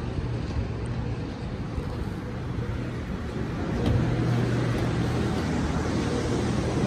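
Steady low machine hum over shopping-mall background noise, louder from about four seconds in, when the escalator is under foot.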